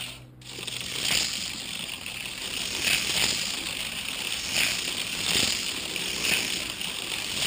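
Hot Wheels Total Control Racing toy cars running on the plastic track: a hissing whir from their small electric motors and wheels, swelling every second or so as cars pass close by.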